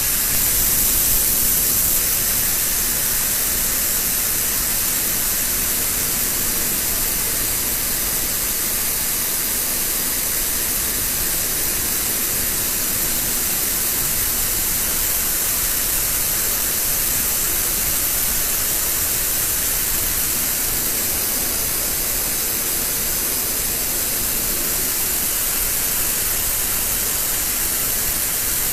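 Cryotherapy device hissing steadily as it delivers cold therapy, a little louder in the first couple of seconds.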